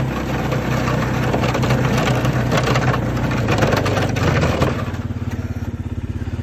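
ATV engine running as the quad drives through snow, then settling to a steady, evenly pulsing idle about three-quarters of the way through.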